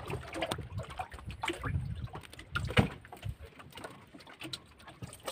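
Handling noises aboard a small fishing boat: scattered knocks, taps and clicks, with one louder knock about three seconds in.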